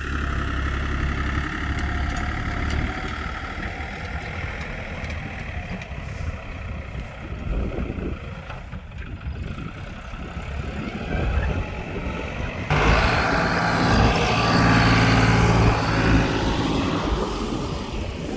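A motor vehicle's engine running steadily, then jumping suddenly louder and busier about 13 seconds in.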